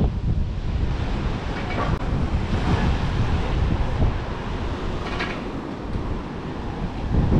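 Strong wind buffeting the microphone with a low rumble, over surf washing and breaking on shoreline rocks, with a couple of louder swells of surf about two and five seconds in.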